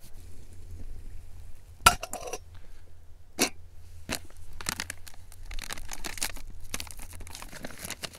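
Camp cooking gear and a packet being handled by hand: a sharp knock about two seconds in and another a second and a half later, then several seconds of crinkling and rustling.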